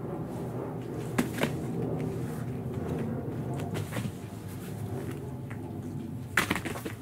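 A cat scrambling on a bare wooden floor while chasing its tail: scattered sharp knocks and scuffs, two about a second in, one around four seconds, and the loudest cluster near the end, over a steady low hum.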